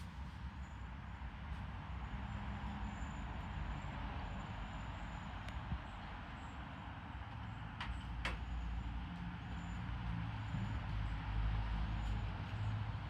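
Chestnuts falling and thudding to the ground a few times: a sharp one about six seconds in and two close together about eight seconds in. Under them runs a steady low rumble with faint high chirps.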